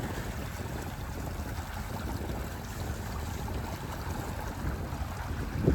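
Steady rush of water along a sailboat's hull with wind noise on the microphone, swelling louder right at the end.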